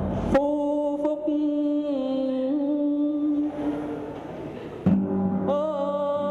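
Ritual music for a Vietnamese ancestor-worship rite. A percussion stroke is followed by one long held note with slight bends, lasting about three seconds. Near five seconds a second stroke is followed by another held note.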